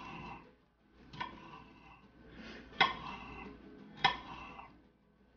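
Chef's knife chopping through jalapeño strips onto a marble slab: three sharp clicks about a second and a half apart, each ringing briefly.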